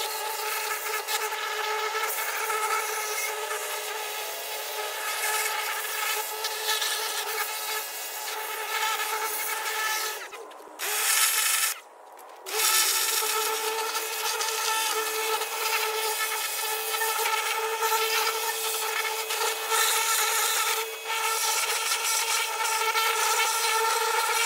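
Pressure washer running, its jet hissing as it blasts dirt off a riding lawnmower and the ground, with a steady whine from the machine underneath. It cuts out twice, briefly, about ten to twelve seconds in, then carries on.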